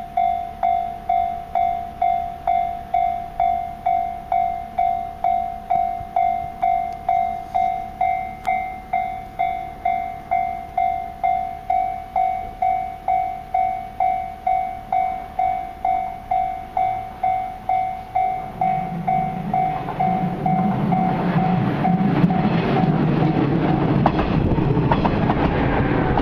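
Japanese level-crossing warning bell ringing at about two strikes a second. From about eighteen seconds in, a local electric train approaches and runs over the crossing; its rumble and clatter grow louder and cover the bell.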